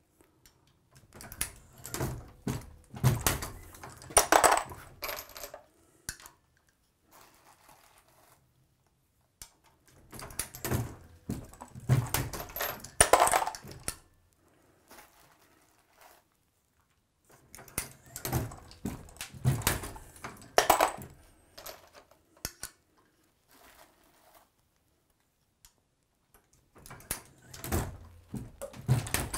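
Hornady Lock-N-Load AP progressive reloading press cycled by hand while loading 22 Nosler cartridges: metal clicks and clatter as the shell plate indexes, with brass cases clinking. It comes in four bursts several seconds apart.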